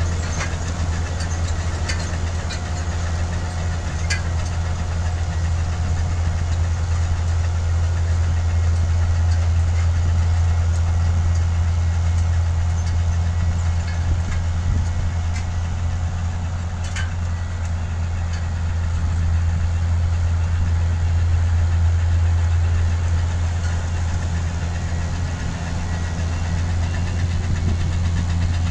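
ROPA Tiger self-propelled sugar beet harvester running under load, a steady low engine drone. A few sharp clicks come through it in the first few seconds and once around the middle.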